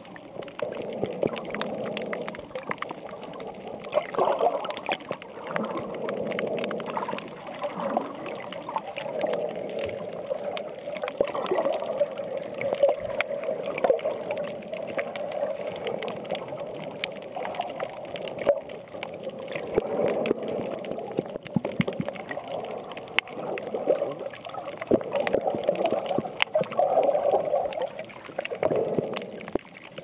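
Water moving around an underwater camera: a dull rushing and gurgling that swells and fades unevenly, with scattered faint clicks.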